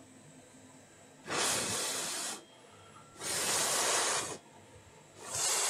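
Three hissing bursts of blown air, each about a second long with short pauses between, cooling a freshly reflowed phone logic board.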